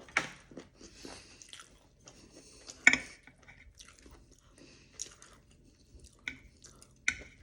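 A person chewing crispy fried vegetable tempura close to the microphone, wet chewing broken by sharp crunches, the loudest about three seconds in and others near the end.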